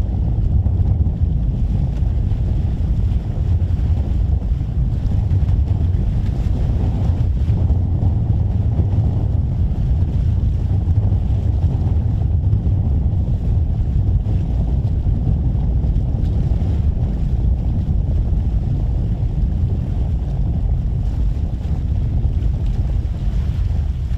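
Steady low rumble of a ferry underway, with wind buffeting the microphone.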